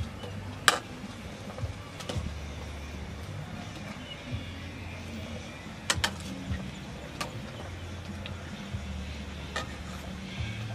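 A metal ladle clinking against a cooking pot several times, one sharp clink a little under a second in the loudest, over a low hum that comes and goes.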